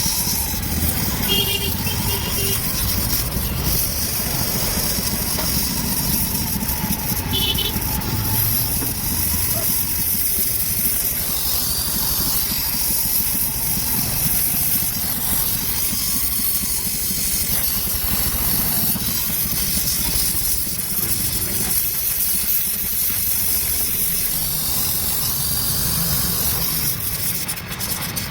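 Gas welding torch flame burning with a steady hiss over a low rumble.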